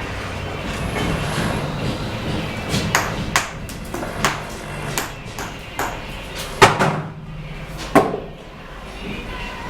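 A steel bricklaying trowel striking cement bricks and mortar: sharp ringing taps at irregular intervals over a steady background of scraping and site noise, two louder strikes in the second half.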